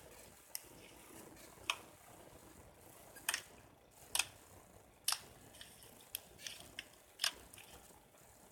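Slime being pressed and worked, giving about ten sharp clicking pops at irregular intervals.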